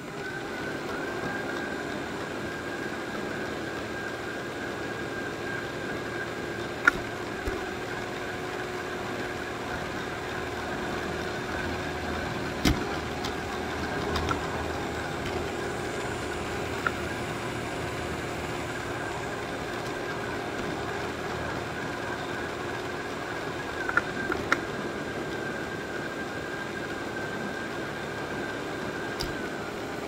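Robot vacuum running as it moves across the floor: a steady motor hum with a high whine over it, broken by a few sharp knocks.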